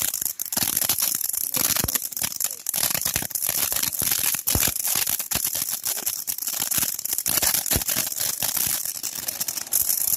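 Consumer firework going off with a dense, continuous crackling of many small sharp pops.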